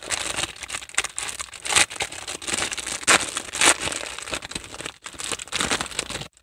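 A clear plastic bag crinkling and crinkle-cut paper shred filler rustling as hands handle items in a packed box, with irregular sharp crackles that stop shortly before the end.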